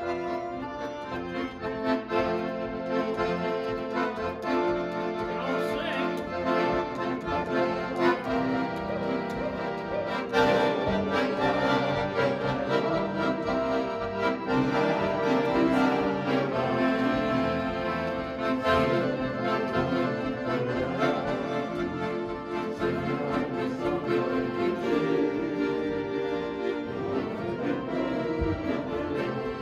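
Two piano accordions playing a tune together: sustained chords under a changing melody, without a break.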